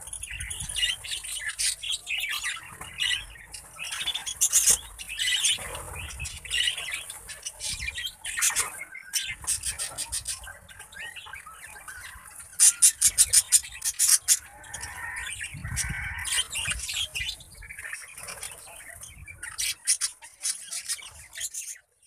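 A flock of budgerigars chattering with many short, overlapping chirps while feeding, and wings flapping as birds fly on and off the pot of greens. A quick run of sharp clicks comes a little past halfway.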